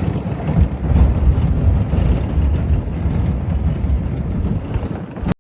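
Car driving slowly over a rough road, a steady low rumble of road and engine noise that cuts off suddenly near the end.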